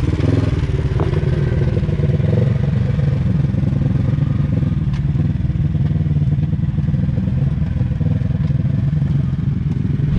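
Off-road vehicle engine running steadily close by, a loud even hum with no revving.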